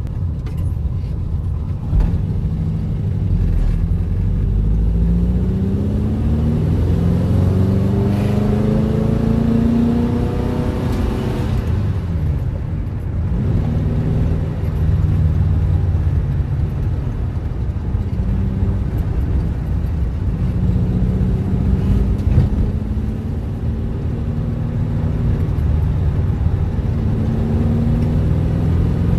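Volkswagen Fusca's air-cooled flat-four engine pulling the car along. Its pitch climbs for several seconds, drops suddenly at a gear change about eleven seconds in, then runs steadier with a couple of smaller rises.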